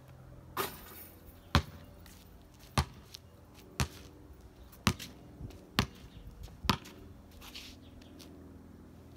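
A basketball bouncing on a concrete driveway: six sharp bounces about a second apart, after a brief noisy clatter about half a second in.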